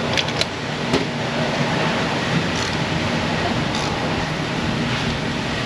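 Steady mechanical rumble with a low hum, and a few light clicks in the first second from a ratchet turning a spark plug to check its tightness.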